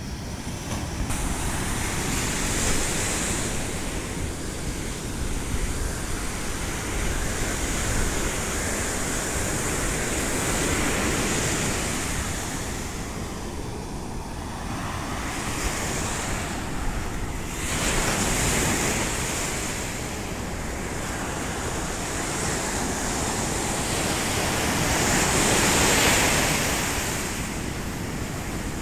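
Sea surf breaking and washing up a sandy shore, surging every few seconds with the biggest wash near the end, while wind buffets the microphone.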